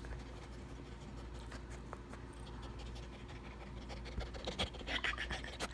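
Faint scratchy rustling and rubbing as a puppy wriggles on bedsheets and nuzzles right up against the phone, its fur and face brushing the microphone. The rubbing grows louder about four and a half seconds in, with a couple of sharp clicks near the end.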